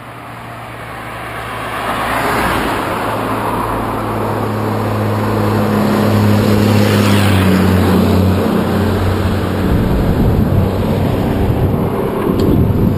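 A motor vehicle running past on the wet road: the engine note and tyre noise swell over the first two seconds, hold a steady low tone for several seconds, then drop slightly in pitch and fade about eight seconds in.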